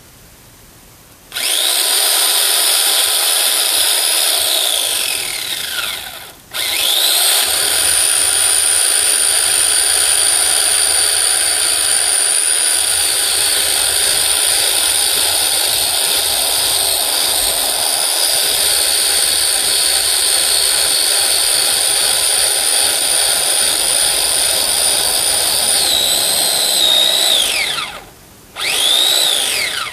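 Electric chainsaw running at a steady high whine while cutting wood. It starts about a second in, winds down with a falling pitch around six seconds, then starts again at once and runs for about twenty seconds. It winds down again and gives one more short run near the end.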